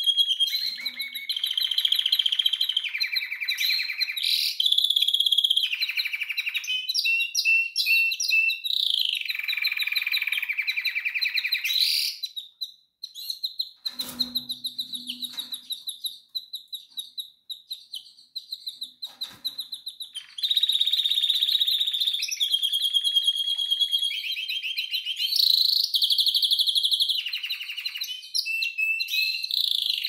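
Domestic canary singing: rolling trills of rapid repeated notes that change pitch and pattern every second or two. Around the middle the song drops to sparse, quiet repeated notes for several seconds, then the full trilled song resumes.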